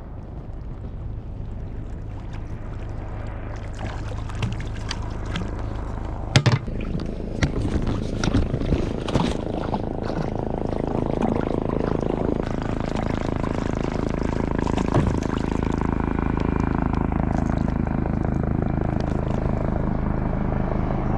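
Water rushing and splashing around a fishing kayak as a hooked tuna tows it along, growing louder, with scattered knocks and clicks.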